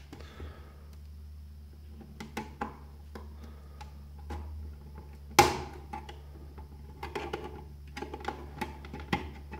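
Metal pry tool clicking and scraping in the seam of the plastic case of a WD My Book World Edition NAS enclosure, with a string of small plastic ticks. About five and a half seconds in comes one loud sharp snap as a plastic latch of the front mask lets go and the case separates.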